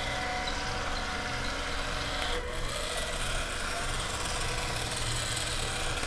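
Two small geared DC motors whirring steadily as a homemade two-wheeled robot spins in place on its wheels, with a brief dip about two and a half seconds in.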